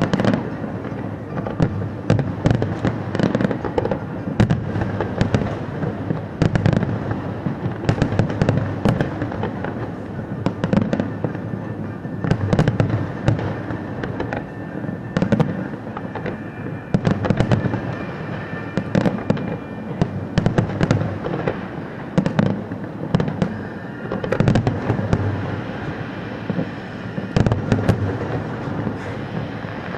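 Fireworks display going off in a dense, continuous barrage: sharp bangs come several times a second over a steady low rumble and crackle.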